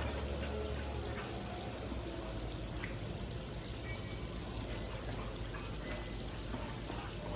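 Steady running water, with a few faint clicks over it.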